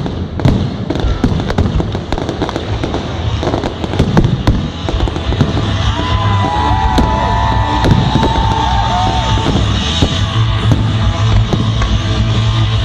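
Fireworks going off in rapid bangs and crackles, over loud music with a steady bass.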